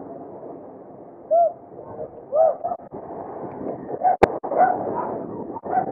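Wind and road rush on a bicycle handlebar camera while riding, with a few short hoot-like calls that rise and fall and a sharp click about four seconds in.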